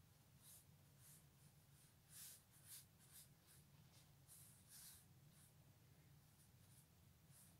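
Faint short strokes and rustles of a watercolour brush working on paper and a paper towel being handled and dabbed, the strongest about two to three seconds in and again near five seconds, over a low steady hum.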